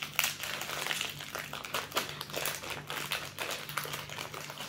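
Plastic wrapper of an Oreo cookie sleeve crinkling and crackling in a rapid, uneven run of small clicks as it is handled and torn open.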